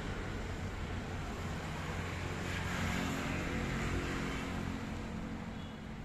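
Steady road traffic noise, with a vehicle's engine hum swelling through the middle as it passes.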